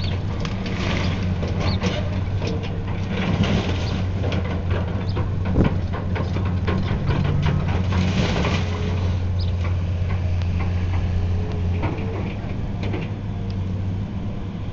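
Heavy demolition machine's engine running with a steady low drone, with crunching and clattering of debris as it tears into a building; louder crashes of falling debris about three and eight seconds in.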